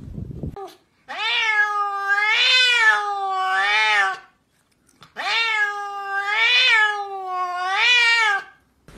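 A domestic cat gives two long, drawn-out meows a second apart, each wavering up and down in pitch several times.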